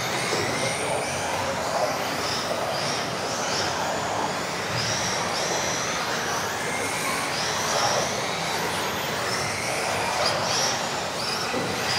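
Several electric RC off-road cars racing together, their motors giving high-pitched whines that rise and fall in pitch as they speed up and slow down, over a steady hiss.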